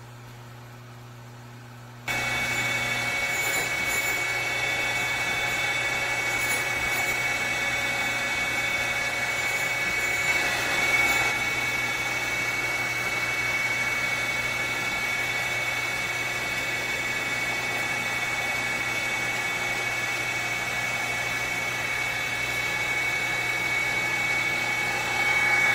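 Surface grinder's abrasive wheel grinding an aluminum workpiece: a steady grinding noise with a high ringing whine. It starts abruptly about two seconds in, after a faint low hum.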